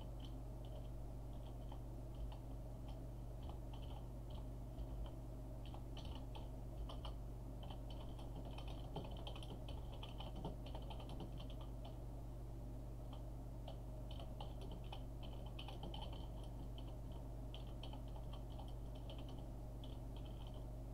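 Computer keyboard being typed on in runs of quick keystrokes with short pauses, over a steady low hum.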